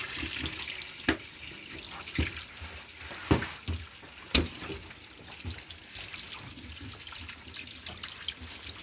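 Water running steadily from an open tap into a sink, with about five sharp knocks in the first half as a tilapia is filleted with a knife on a cutting board.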